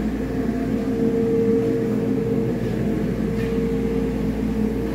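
Volvo D13M 13-litre inline-six diesel engine running steadily on a test stand, with a constant whine above the engine note. It runs smoothly, in good order.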